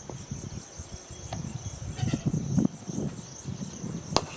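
Insects chirping in a steady, high, pulsing trill over irregular low muffled rumbling. A single sharp click sounds near the end.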